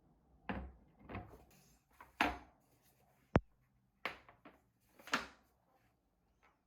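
Handling sounds from unpacking a Pyrex glass measuring cup: a series of short knocks and scuffs of the cup and its packaging, with one sharp click about three and a half seconds in.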